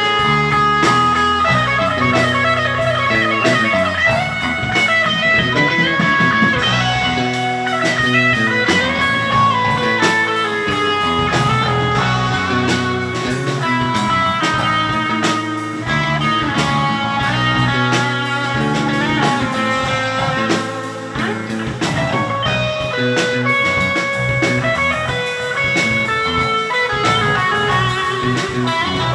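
Live rock trio of electric guitar, electric bass and drum kit playing an instrumental jam: a lead guitar line moving over a steady bass line and drum kit with cymbals.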